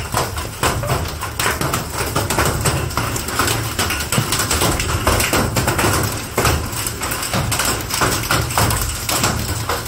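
Hailstorm with heavy rain: hailstones pelting the wet ground and nearby objects in a dense, continuous patter of many small sharp hits.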